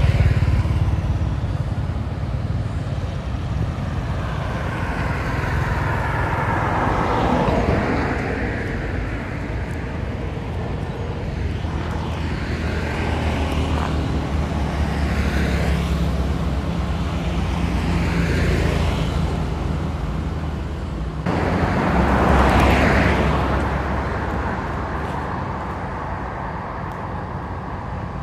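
Road traffic: a steady low rumble, with a string of vehicles passing one after another, each swelling and fading away.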